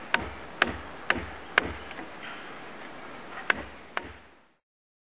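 Wooden mallet striking a chisel as it chops a through-mortise in a timber beam: four sharp knocks about two a second, a pause, then two more. The sound cuts off suddenly after the last strikes.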